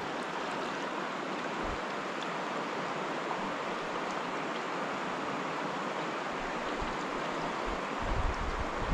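River water rushing steadily, an even noise with no breaks, with a few low rumbles near the end.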